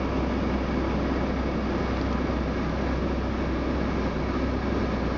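Steady outdoor background noise: a constant low rumble under an even hiss, with no distinct events.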